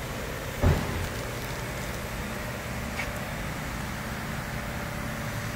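Truck engine idling, a steady low hum, with one sharp knock about a second in and a faint click near the middle.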